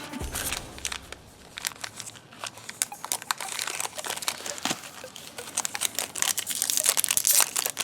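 Foil trading-card pack wrapper crinkling as it is handled and torn open, in irregular crackles that grow busier near the end; the wrapper is tearing badly rather than opening cleanly.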